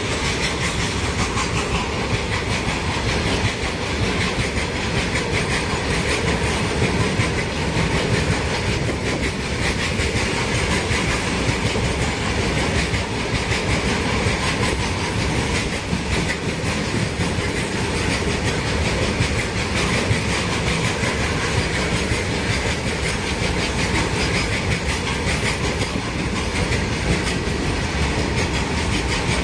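Loaded coal freight train rolling steadily past, its steel wagon wheels clattering over the rail joints in a continuous clickety-clack.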